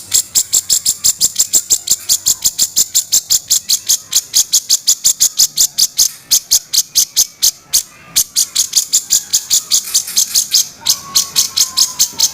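Cucak jenggot (grey-cheeked bulbul) giving its rough chattering 'kasaran' call: a fast, even run of high, sharp ticks, about seven a second, broken twice by short pauses.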